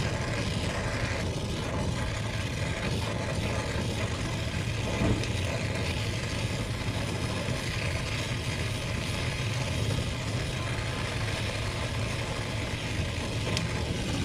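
Brazing torch flame burning steadily with a rushing noise as it heats a copper capillary-tube joint at the filter drier.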